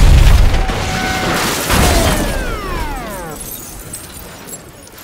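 Film sound effects of a giant toy train engine smashing through a house and landing on a car: a heavy boom at the start, a second crash with shattering debris a little under two seconds in, then a tone sliding down in pitch as the noise dies away.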